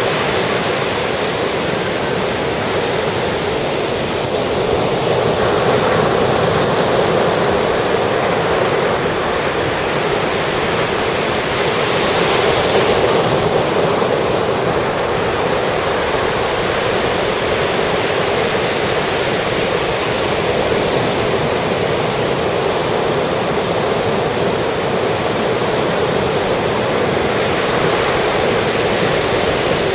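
Sea surf breaking and washing on a sandy beach, a steady rushing with waves swelling a little louder now and then, the strongest about midway.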